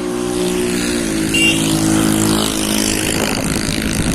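A motor vehicle engine running loud and close, its pitch rising, then holding and dropping a step about a second in, like a gear change under way.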